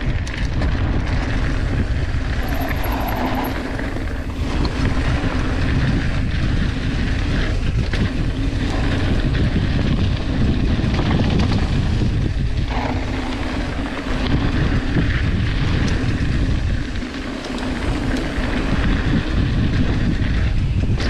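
Wind rushing over the microphone and tyres rolling on gravel as a mountain bike descends a loose gravel trail at speed; a steady loud rush, briefly easing about three quarters of the way through.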